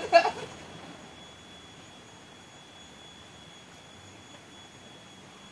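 A faint, steady high-pitched whine over a quiet background hiss.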